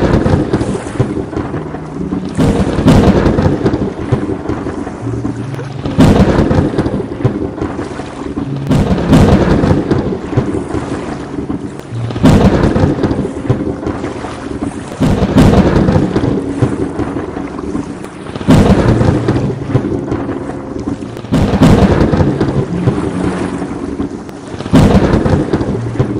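Thunderstorm with a sharp thunderclap about every three seconds, each fading into a rumble, over steady rain.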